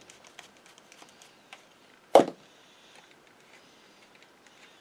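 Small metal clicks and ticks of a screwdriver backing a case screw out of a Westinghouse sewing-machine motor, then a single louder knock about two seconds in as the screwdriver is laid down on the bench mat, followed by faint fiddling with the screw.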